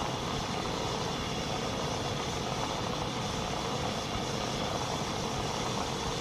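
Steady, even background hiss with a faint hum underneath, unchanging throughout, with no distinct clicks or other events.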